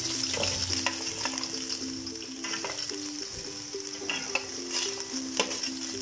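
Julienned carrots, shredded cabbage and green capsicum landing in hot oil in a wok, sizzling steadily, with a few sharp clicks of metal against the pan.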